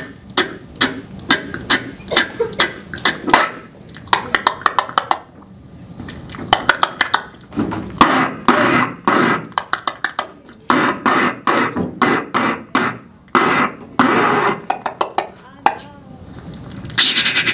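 Solo beatboxing into a handheld microphone: quick runs of sharp percussive mouth clicks alternating with longer buzzing and hissing stretches.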